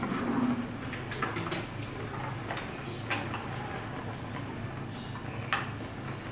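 Plastic mustard-oil pouch crinkling and rustling as it is handled and opened by hand, with a few sharp clicks, the sharpest about five and a half seconds in. A low steady hum sits underneath.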